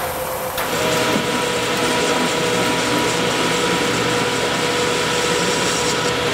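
Vertical milling machine switched on about half a second in, then running steadily with an end mill cutting an aluminium block: a level mechanical noise with a few steady tones through it.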